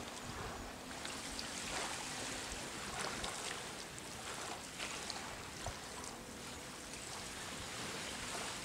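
Small waves lapping on a sandy beach, a soft wash of noise that swells every second or two.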